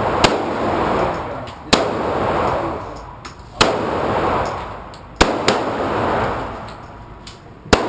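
9mm Smith & Wesson semi-automatic pistol fired five times, one slow aimed shot every one and a half to two and a half seconds, each crack followed by a long echo.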